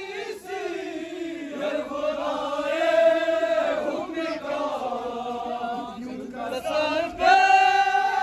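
A group of men chanting together in unison, drawing out long held notes that swell and fade, loudest about three seconds in and again near the end.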